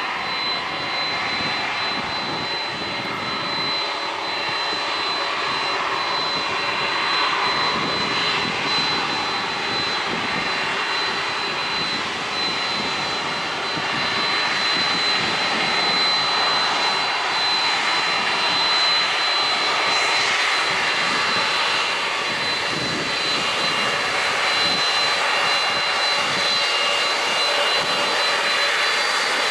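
Boeing 767-300 airliner's jet engines running steadily, growing louder about halfway through as the aircraft comes closer.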